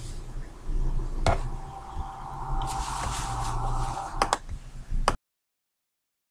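Quiet ambient soundtrack of a short film playing on a computer: a low steady hum, with a held mid-pitched tone and a hiss in the middle and a few sharp clicks. About five seconds in, the audio cuts off to dead silence.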